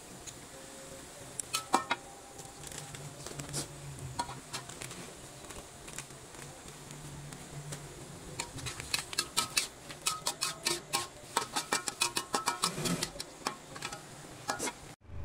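Metal spatula clinking and scraping against a steel wok while stir-frying vegetables and quail eggs, over a steady hiss. The strokes are scattered at first and come quick and close together through the second half, stopping suddenly just before the end.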